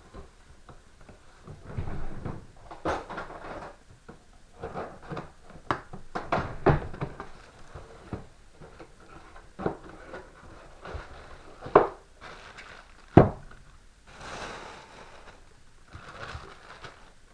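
A cardboard box and its packaging being opened and handled: irregular knocks and thuds, the sharpest two about three quarters of the way through, with rustling of packaging near the end.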